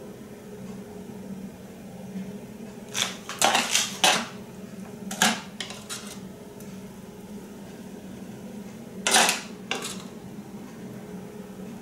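Spoon clinking and scraping against a granite-coated saucepan while thick custard is scooped out of it: a quick cluster of clicks about three to four seconds in, a few more around five to six seconds, and two more near nine to ten seconds, over a faint steady hum.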